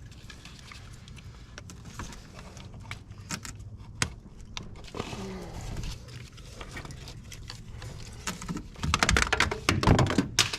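Metal tools and engine parts clinking and rattling over a steady low hum, with a louder burst of clattering near the end.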